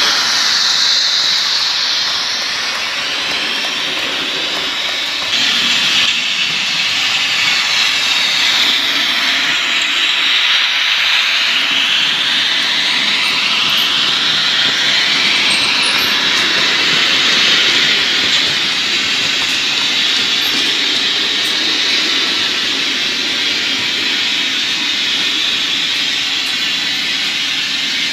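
Märklin model train, an E 69 electric locomotive pulling coaches, running along the layout's track: a steady, loud rushing hiss of wheels and motor with a slowly sweeping tone as it passes. It gets a little louder about five seconds in.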